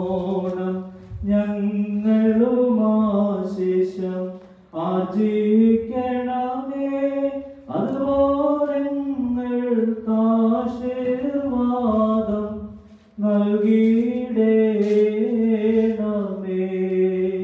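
A man's voice chanting an Orthodox liturgical prayer on a steady, slowly moving pitch, in four long phrases with short breaks between them.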